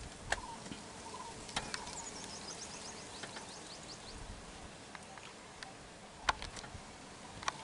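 Outdoor natural background with a rapid, high trill of short repeated notes from about two to four seconds in, and a few sharp clicks, the loudest about six seconds in.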